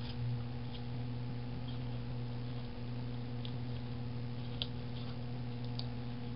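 Steady low background hum, with a couple of faint light ticks near the end.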